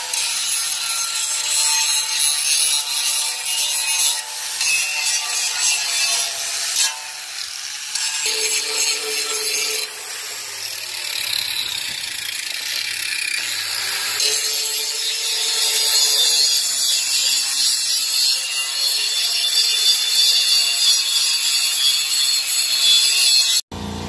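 Paint and rust being scraped and wire-brushed off a steel bumper: a loud, continuous rasping scrape of metal tools on metal that cuts off abruptly near the end.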